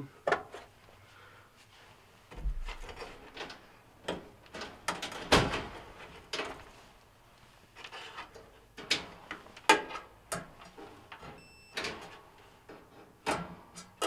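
Scattered clicks, knocks and rattles of hands pulling wire terminals off a clothes dryer's heating-circuit parts and handling the multimeter probes against the sheet-metal cabinet. A brief faint beep near the end is the multimeter on continuity, signalling a closed circuit.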